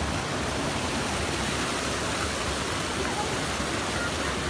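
Shallow creek water pouring over a low rock ledge in a steady rush.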